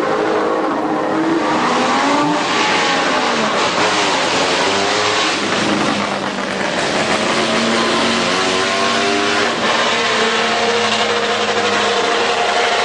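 A line of cars driving past one after another, several engines running at once, their pitch rising and falling as each car goes by.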